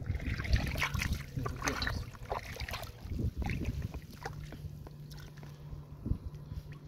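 Hands splashing and sloshing in shallow muddy water while grabbing small fish, in irregular splashes and drips. It is busiest in the first three seconds or so and quieter after.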